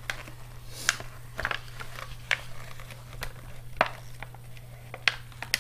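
A paper gift bag rustling and crinkling as a toddler's hand rummages inside it, with a string of small, irregular clicks and taps.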